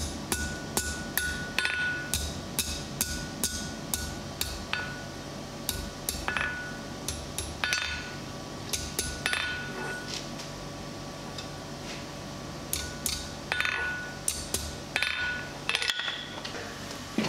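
Hand hammer striking hot mild steel on an anvil, scrolling the end of a bar, with the anvil ringing after the blows. The blows come in irregular runs, thinning out in the middle.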